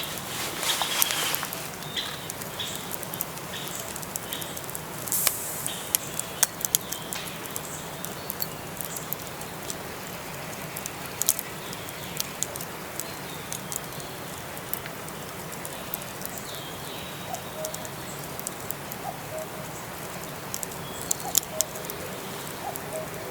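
Wood fire crackling with scattered sharp pops over a steady background rush, with a run of short high chirps in the first few seconds.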